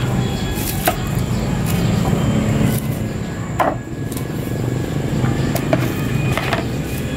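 A few sharp knocks of a knife blade against a wooden chopping block while a dorado is filleted, over a steady low drone.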